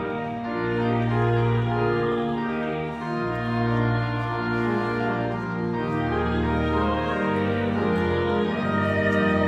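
Organ playing slow, held chords over a bass line that shifts every second or two.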